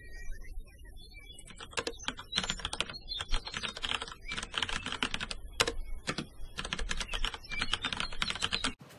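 Rapid clicking of computer keyboard typing, starting about a second and a half in and cutting off suddenly just before the end.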